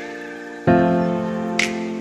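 Background music: soft sustained keyboard chords, a new chord struck about every second and a half and left to fade, with a light high accent between them.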